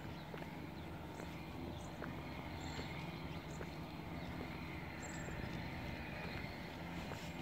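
Outdoor ambience with a low steady rumble, and faint regular footsteps on a concrete path, about two a second.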